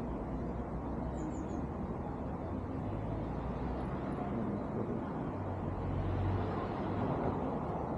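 Steady city street ambience dominated by a low traffic rumble, with a low engine-like hum swelling for a couple of seconds past the middle.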